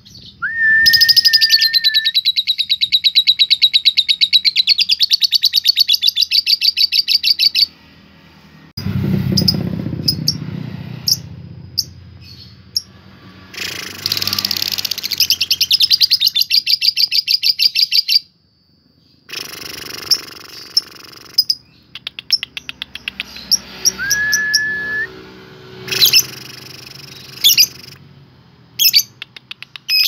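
Lovebird 'ngekek': long, very fast rattling trills lasting several seconds each, the extended song bird-keepers play to provoke other lovebirds into singing. The trills are broken by two short rising whistles, a low rustle about nine seconds in, and a run of sharp separate chirps near the end.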